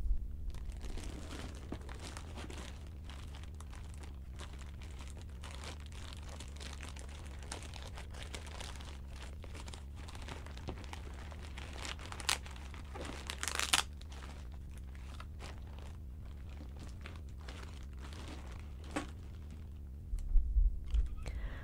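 A plastic mailer bag being torn open and crinkled by hand, with two louder bursts of rustling about twelve and fourteen seconds in. A steady low hum runs underneath.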